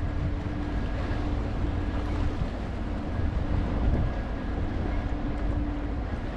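Ferry's engines running with a low, steady drone aboard a moving ship, with wind buffeting the microphone and water washing along the hull.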